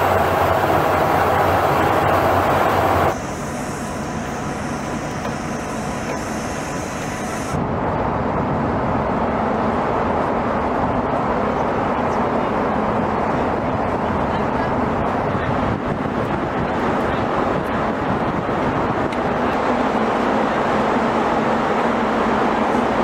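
F-16 fighter jet's engine running, a steady rushing noise with no clear pitch. The level drops abruptly about three seconds in and steps back up about seven and a half seconds in, where the recording is edited.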